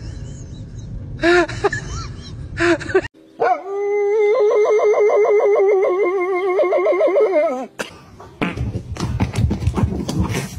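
Dog howling: one long howl of about four seconds that wavers up and down in pitch and drops away at the end. It is the loudest sound, after a few short calls earlier on.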